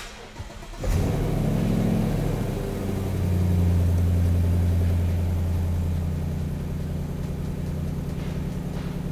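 A 2015–2017 Mustang GT's 5.0-litre V8 cranks and starts about a second in, then idles steadily. The idle eases down a little after a few seconds. This is the first start on a freshly flashed Roush tune.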